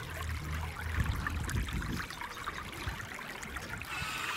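Water trickling and lapping, an even, irregular wash of small splashy ticks, with a low hum underneath for about the first second.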